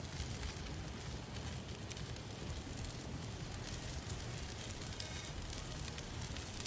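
Open wood fire burning in a kettle grill under a rotisserie: a steady, quiet hiss with faint scattered crackles.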